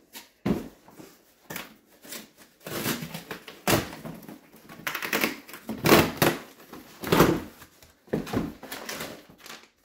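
Cardboard shipping box being opened by hand: packing tape peeled and ripped away and the flaps pulled apart, a run of irregular ripping and scraping sounds with a short knock about half a second in.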